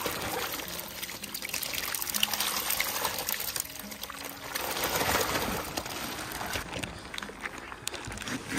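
Water pouring and trickling, rising and falling in level.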